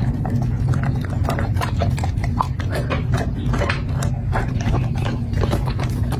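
A corgi chewing and crunching its food: quick, irregular wet crunches and clicks of teeth, over a steady low hum.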